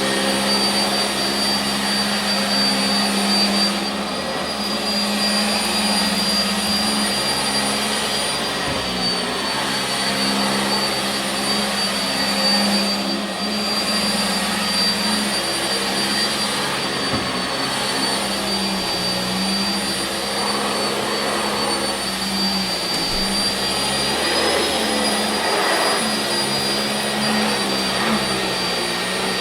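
Sanitaire SC679J commercial upright vacuum cleaner running while vacuuming carpet: a steady motor hum with a thin high whine over the rush of air, the level wavering a little as it works.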